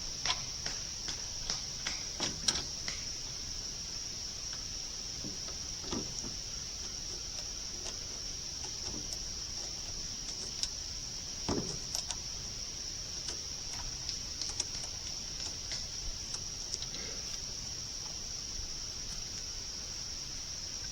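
Steady high-pitched drone of insects, with scattered light clicks and knocks from parts and tools being handled, a few louder near the middle.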